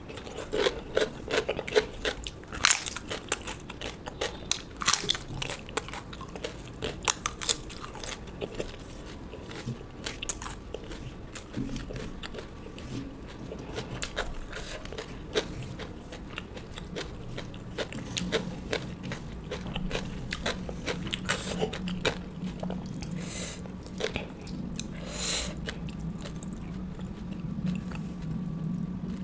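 A person eating close to the microphone: chewing and crunching food with many sharp crunches and mouth clicks, densest in the first half, then softer, steadier chewing near the end.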